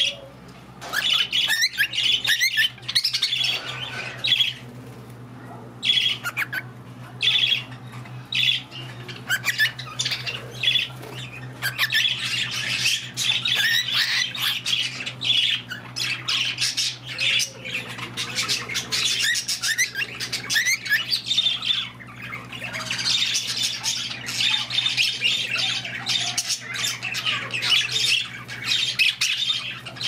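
Cockatiel whistling and chattering in many short calls, mixed with the busy chatter of other small parrots in the aviary, over a steady low hum.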